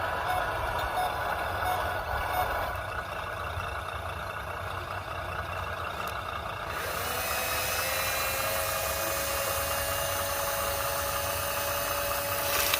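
Construction vehicle engine rumbling steadily, with reversing beeps about one and a half a second that stop after a couple of seconds; about seven seconds in a hiss and a whine that rises and then holds steady join in, and everything cuts off suddenly at the end.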